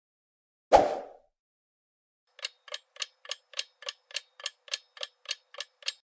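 A clock-like ticking sound effect, about three and a half ticks a second, starting about two and a half seconds in and stopping near the end: a quiz countdown timer while the answer is still hidden. Before it, about a second in, a single short hit.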